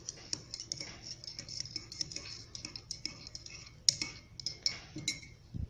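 Metal teaspoon stirring tea in a mug, clinking lightly and irregularly against the sides, with a few sharper knocks.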